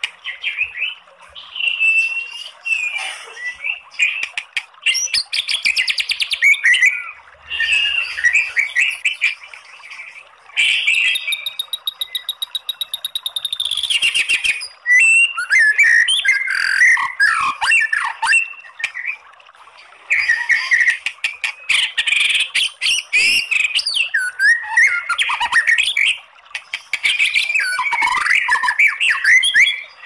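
White-rumped shama (murai batu) singing a long, varied song of quick whistles, chattering 'kretekan' notes and clicks in phrases with short pauses, with a fast, even rattling trill a little before the middle.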